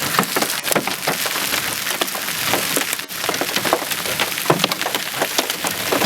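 Large hailstones, golf-ball size and bigger, striking hard surfaces in a dense, irregular clatter of sharp knocks over the hiss of heavy rain.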